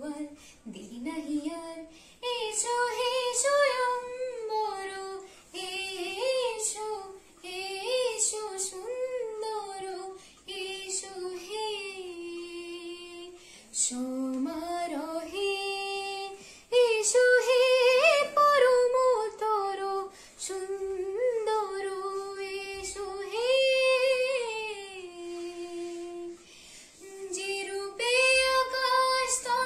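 A high female voice singing a melody unaccompanied, in phrases with held notes and sliding pitch and short pauses between them.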